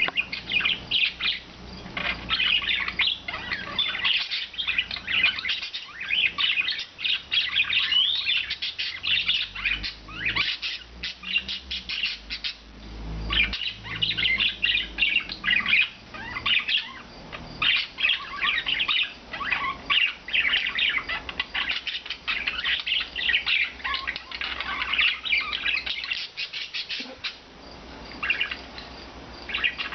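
Several budgerigars chattering and chirping continuously in quick, warbling bursts.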